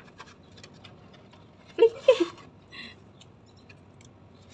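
Spatula and fork clicking and scraping lightly against a metal baking tray as a large whole roasted fish is lifted to turn it over. A short vocal sound about two seconds in is the loudest thing, followed by a brief high squeak.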